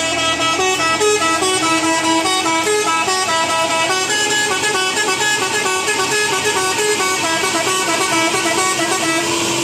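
Telolet basuri horn, the multi-note musical air horn of Indonesian buses and trucks, playing a fast tune of short stepped notes over a steady low held note.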